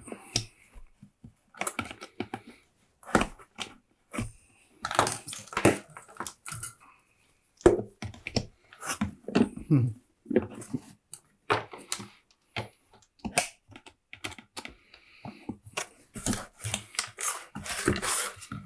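Irregular clicks, knocks and scrapes of plastic parts being worked with hand tools: the wheels being prised out of a Numatic Henry vacuum cleaner's plastic base with a small screwdriver and pliers.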